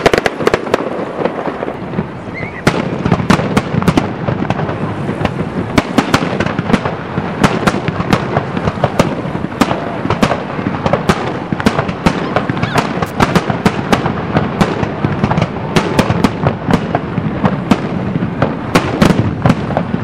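Fireworks display: aerial shells bursting in quick, overlapping bangs over a continuous rumble. The bangs come thicker and louder a little over two seconds in.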